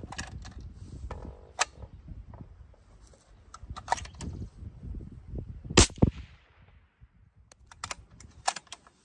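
A suppressed bolt-action rifle shot about two-thirds of the way in, the loudest sound, with a short ring after it. Several sharper, smaller metallic clicks and knocks come before and after it.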